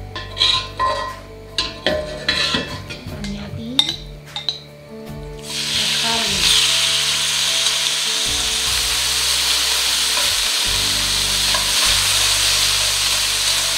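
Marinated pork strips tipped into hot oil in a wok, setting off a steady sizzle that starts suddenly about five and a half seconds in and goes on as the meat is stirred with chopsticks. Before that there are a few sharp clicks and clinks.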